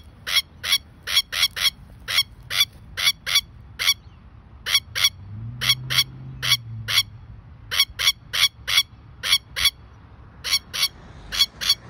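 Masked lapwing alarm calls: loud, sharp, short notes repeated in quick series, often in pairs, about two to three a second, with brief pauses between runs. These are the calls of a lapwing disturbed at its nest by a close approach.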